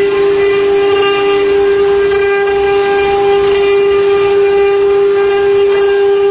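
Spindle motors of a multi-head CNC wood carving router running at speed, a steady high-pitched whine, while the bits carve relief panels in wood.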